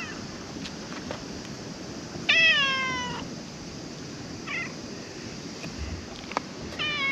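Calico cat meowing: a long meow about two seconds in that falls in pitch, a short call around four and a half seconds in, and another falling meow starting near the end.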